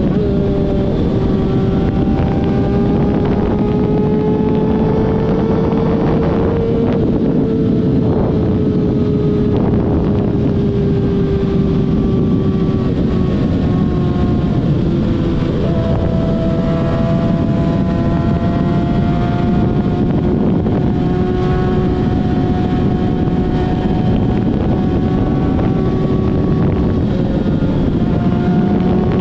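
A vehicle engine droning at a nearly steady speed, its pitch drifting slowly up and down, over a dense rush of noise.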